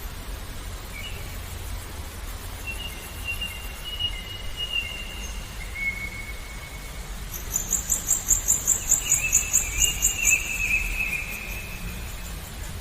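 Songbirds singing thin whistled notes, with a fast, high, pulsing trill of about five chirps a second in the middle that is the loudest part, over a steady low rumble.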